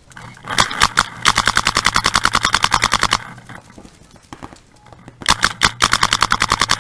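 Paintball marker firing: a few single shots, then a fast, even string of about a dozen shots a second for about two seconds, a pause, and a second fast string near the end.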